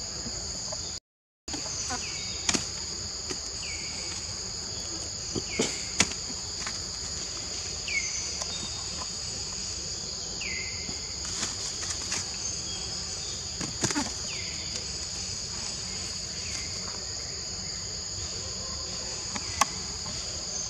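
Forest insects droning in a steady high-pitched two-tone chorus, with short falling chirps every second or two and a few sharp knocks over it.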